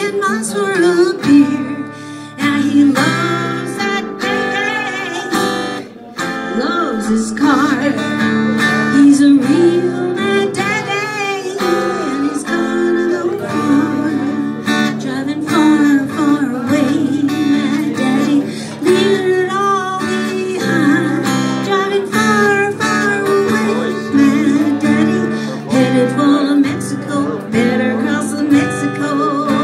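A woman singing a song while playing an acoustic guitar, a live solo performance.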